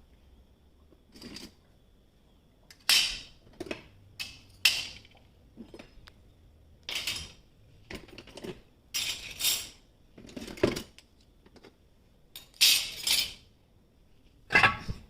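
Dishes and cutlery clinking and knocking as they are handled around a dishwasher, in a string of separate short clatters with pauses between them.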